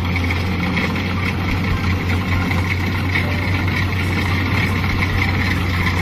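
Kubota DC-70 combine harvester's diesel engine and machinery running steadily under load while it cuts rice, a continuous low drone with a higher steady whine over it.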